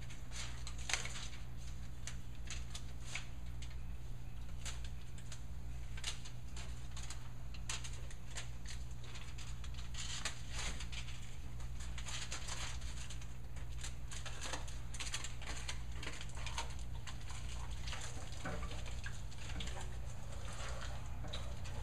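Foil bubble-wrap radiant barrier being handled and fitted around a water heater tank: irregular crinkling and light tapping, over a steady low hum.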